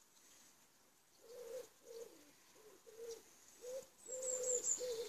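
A pigeon cooing, a run of low coos starting about a second in, with a small bird giving four quick high chirps near the end.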